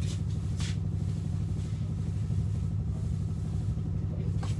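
A motor vehicle engine idling with a steady low rumble, with two brief hissing sounds near the start.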